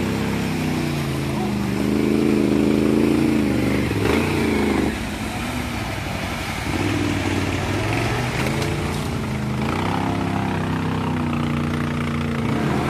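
Off-road vehicle engine revving as it drives through deep mud. It climbs in pitch, drops back about five seconds in, then climbs again.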